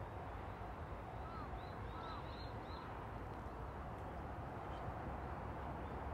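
Faint bird calls: a quick series of short chirps between about one and three seconds in, over a steady low background rumble.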